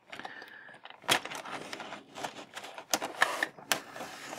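Hobby knife cutting open a plastic blister pack: scratchy scraping and crackling of the plastic with sharp clicks, the loudest about a second in and a cluster around three seconds in.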